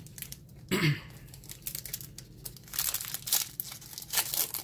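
A Magic: The Gathering booster pack's foil wrapper being torn open and crinkled, with many sharp crackles through the second half. About a second in there is a short voice sound that falls in pitch.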